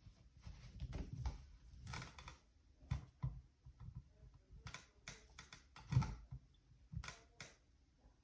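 Scattered clicks and knocks from pressing and handling a smoke alarm's test button, the loudest about six seconds in. No alarm beep follows: the smoke alarm is not working.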